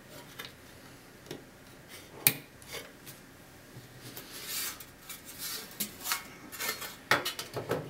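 Hands handling parts inside a DVR's metal case: scattered light clicks and taps, one sharper click about two seconds in, and short rubbing and scraping noises, more of them in the second half.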